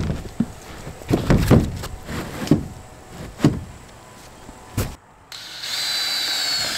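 Footsteps and knocks as a 2x4 wooden purlin is carried and laid down on the roof. About five seconds in, a cordless drill starts driving a screw through the purlin, a steady whine that drops slightly in pitch.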